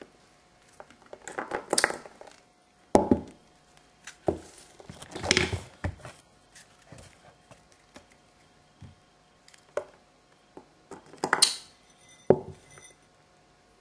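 Three short bursts of crinkly rustling and several sharp knocks on a tabletop covered with shiny plastic sheeting, with the two loudest knocks at about three seconds and near the end.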